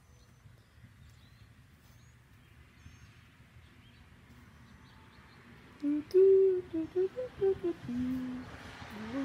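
A person humming a tune in held notes that step up and down, starting about six seconds in; before that only faint outdoor background.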